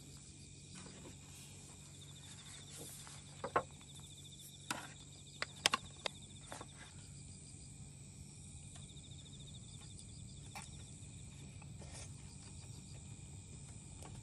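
Night insects, crickets, chirping steadily and faintly. A handful of short light clicks and knocks from things being handled on a folding table come in the middle, the sharpest just before six seconds in.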